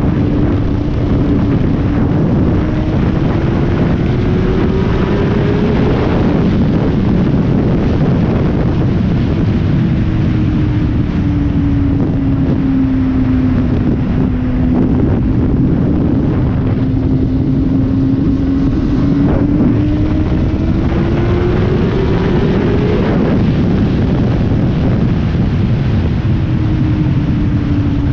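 Sport motorcycle engine heard from the rider's seat while under way, mixed with heavy wind rush over the microphone. The engine note climbs twice as the bike pulls, then drops back each time.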